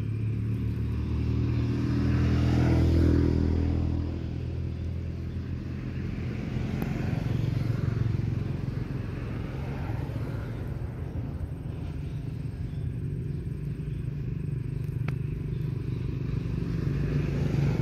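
Road traffic: vehicle engines passing, the loudest swelling and fading about three seconds in, another pass around eight seconds, and an engine growing louder near the end.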